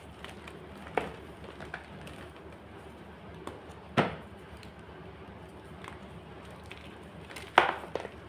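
White gym chalk being crunched, making sharp separate crunches: one about a second in, another around four seconds in, and two in quick succession near the end. Fainter small cracks fall between them.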